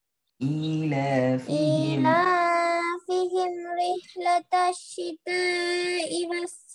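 A voice reciting Quranic verses in a melodic, drawn-out chant, heard over an online call; the sound breaks off in short gaps in the second half, a sound problem that the teacher puts down to the student's headset.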